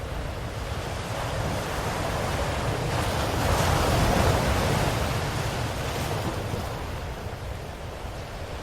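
Ocean waves: one wave swells and breaks about four seconds in, its wash then falling away, over a steady low rumble of surf.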